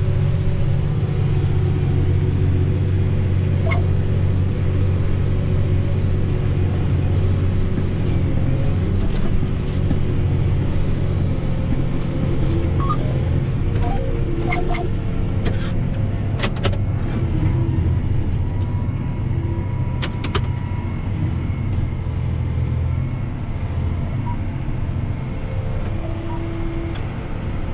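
John Deere 7R 210 tractor engine running steadily under load, heard from inside the cab, with a few sharp clicks over the engine hum partway through. The hum eases slightly in the last few seconds.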